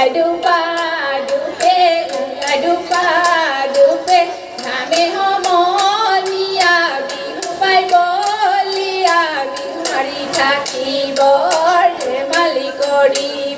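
Women singing a Jeng Bihu folk song into microphones, the melody wavering and ornamented, over a steady beat of sharp claps.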